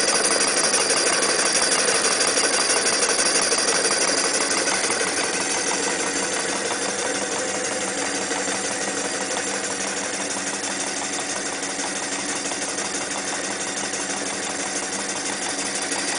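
Jensen 51 replica toy live-steam engine running steadily, its cylinder, flywheel, belts and gearing making a fast, even mechanical clatter. It grows slightly fainter about five seconds in.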